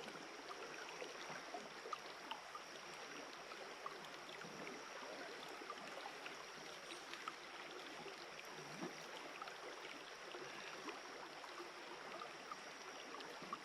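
Shallow creek water running over rocks: a faint, steady rushing with small scattered ticks.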